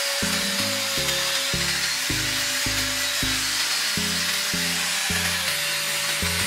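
Electric angle grinder with a sanding pad running at a steady whine, abrading rusty steel with a rasping hiss. Background music with a steady bass pulse plays along.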